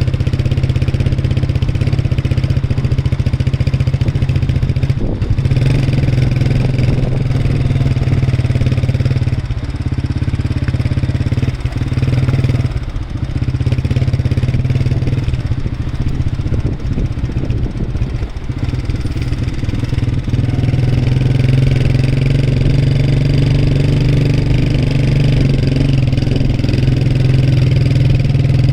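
A motor vehicle's engine running steadily with a low drone, easing off briefly a few times.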